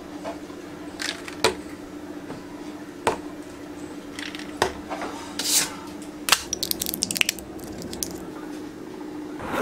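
Glass and plastic medicine bottles set down on a wooden desk shelf, making a handful of separate light knocks, then crinkling and popping as a tablet is pressed out of a foil blister pack. A steady low hum runs underneath.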